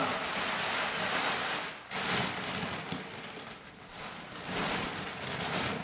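Large black plastic garbage bag crinkling and rustling as it is squeezed to push its air into an air mattress. The crinkling breaks off for a moment about two seconds in and is quieter in the middle before picking up again.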